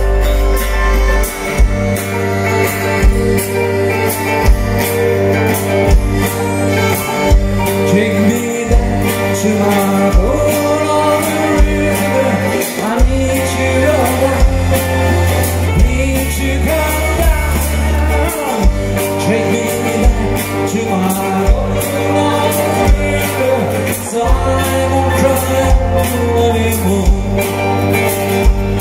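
Live band playing a song on acoustic guitars and accordion over bass and a steady drum beat, with singing.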